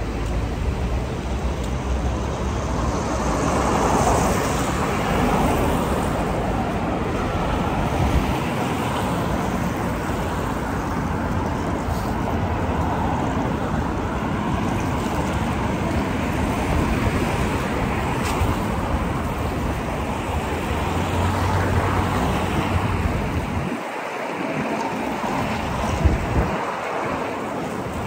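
Steady road traffic noise from cars driving past on a busy city avenue, with a low tyre-and-engine rumble that drops away for moments near the end.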